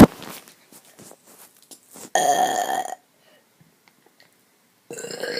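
A person burping on purpose, twice: a long belch about two seconds in, and a second one starting near the end.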